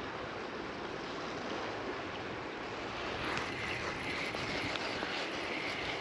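Steady wind noise on the microphone, with a faint high steady tone joining about three seconds in.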